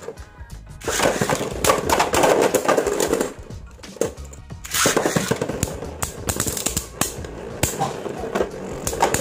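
Beyblade spinning tops clattering rapidly against each other and the walls of a plastic stadium, over background music. The clatter drops away about three seconds in, as one top is knocked apart, and starts again about a second later when a new round is launched.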